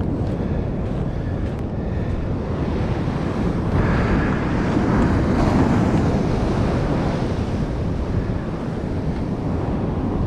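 Ocean surf breaking on a beach, with wind buffeting the microphone; the wash swells louder for a couple of seconds around the middle.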